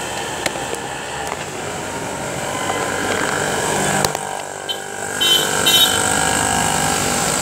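Street traffic running steadily, a hum of engines and tyres on a wet road, with a few sharp knocks and a short high rapid pulsing about five seconds in.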